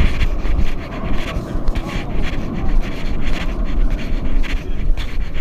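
Brisk footsteps along a subway platform, with a heavy low rumble on the microphone from the camera being carried at a walk.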